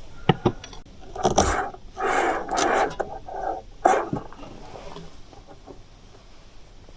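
Handling noises: a few sharp clicks and knocks, then scraping and rustling for about two seconds, and another knock near the four-second mark.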